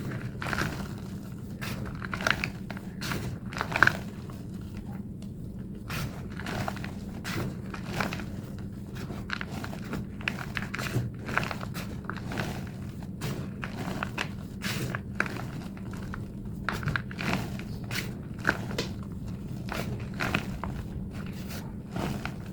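A thick block of plain white gym chalk being crushed and squeezed by hand, giving a dense run of irregular crunches, crackles and squeaks, sped up. A low steady hum runs underneath.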